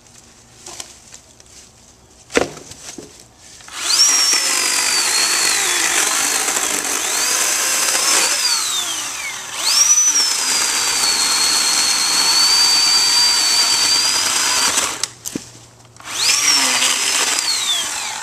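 Oregon PowerNow 40-volt battery chainsaw cutting a log: a high electric whine that spins up, sags and rises in pitch as the chain loads in the wood, and runs for about eleven seconds, then, after a short pause, runs again briefly with its pitch falling. A single sharp knock comes about two seconds in, before the saw starts.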